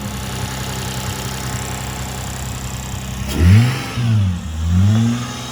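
Car engine idling, then revved: its pitch climbs, drops back and climbs again over the last two seconds.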